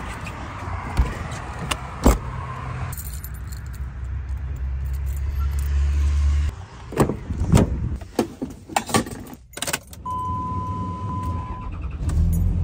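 Keys jangling and clicking in the lock as a truck camper's entry door is locked with a key, after a steady low rumble. Near the end, a single steady electronic chime tone sounds for under two seconds inside the pickup's cab.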